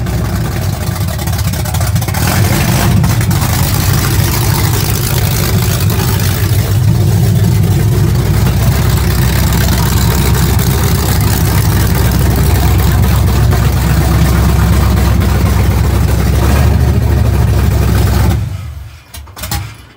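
Small-block Chevy V8 with headers and a loud exhaust running steadily during its break-in on a freshly built engine, very loud. The sound drops away suddenly near the end.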